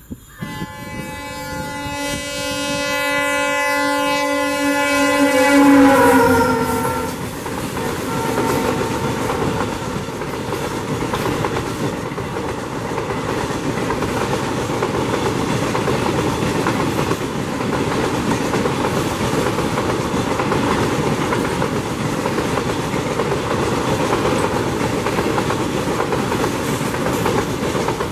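EMD WDP4D diesel-electric locomotive sounding its horn in one long blast as it approaches at speed. The horn is loudest as the locomotive passes about six seconds in, and its pitch drops at that moment. Then the train's coaches pass at speed with a steady clatter of wheels on rail.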